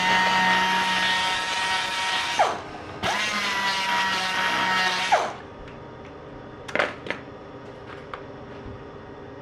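Small air-powered rotary polishing tool running with a steady high whine. It winds down about two and a half seconds in, starts again half a second later, and winds down again after about two more seconds. Two light clicks follow.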